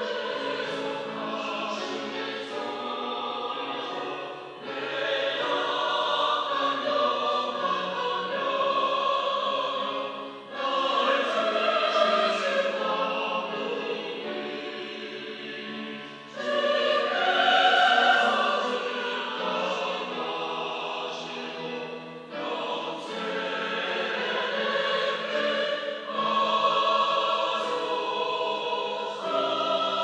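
Mixed church choir of women and men singing a sacred anthem, its phrases dipping and re-entering about every six seconds, loudest a little past the middle.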